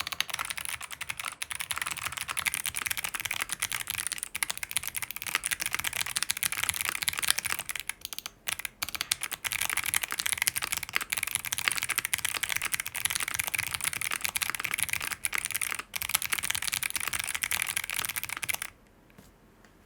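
Fast, continuous typing on an ai03 Vega mechanical keyboard with a POM plate and Kailh Box Jade clicky switches: a dense stream of crisp key clicks. There is a short break about eight seconds in, and the typing stops shortly before the end.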